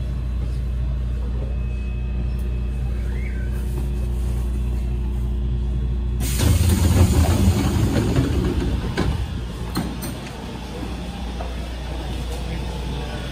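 Subway train sounds: a steady low electric hum by the closed doors, then about six seconds in a sudden switch to a louder rushing, hissing noise that eases off after a few seconds.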